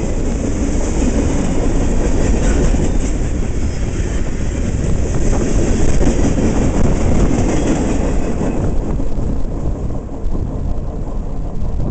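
Freight cars of a long CSX freight train rolling past close by, steel wheels running on the rails. The sound fades about nine seconds in as the end of the train goes by.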